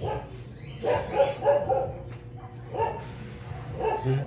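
A dog barking repeatedly in short bouts, with a quick run of barks about a second in and single barks near three and four seconds.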